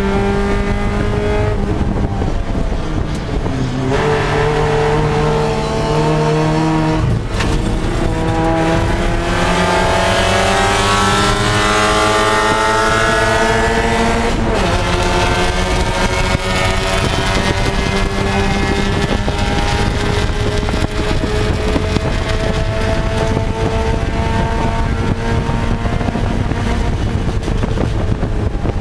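Spec Miata race car's four-cylinder engine heard from inside the cockpit under racing load. Its pitch falls and steps through downshifts in the first several seconds, then climbs hard, drops once at an upshift about halfway through, and rises slowly and steadily after that, over constant wind and road noise.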